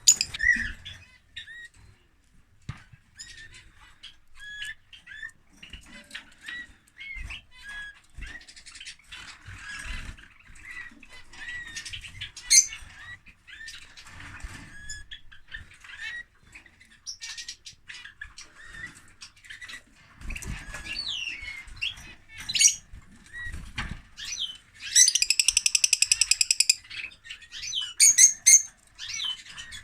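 Lovebird chirping and squawking in short, sharp calls, with a long, rapid, evenly pulsed chattering trill about 25 seconds in that is the loudest sound. A few low thuds come in the second half.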